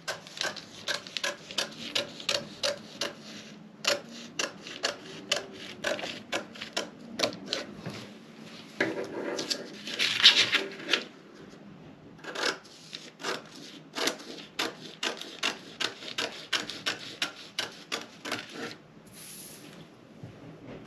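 Quick run of short scratchy strokes on a paper sewing pattern, as the pattern is marked and cut near the bust dart. The strokes come about three to four a second, with brief breaks, and a longer, louder rubbing sound about ten seconds in.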